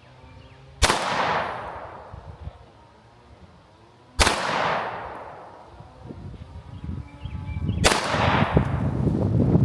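Three pistol shots from a 9mm Sig P365 X Macro, spaced about three and a half seconds apart, each with a short echo trailing off. A low rumbling noise builds over the last few seconds.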